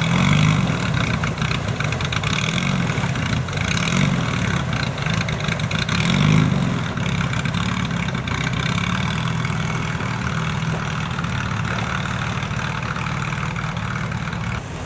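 Off-road 4x4 engine running, revving up and easing off several times in the first seven seconds, then holding a steadier note.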